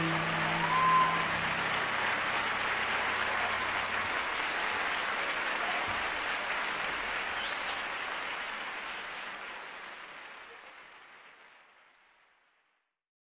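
Audience applause at the close of a live song performance, with the band's last low note dying away in the first few seconds. The applause fades out smoothly to silence near the end.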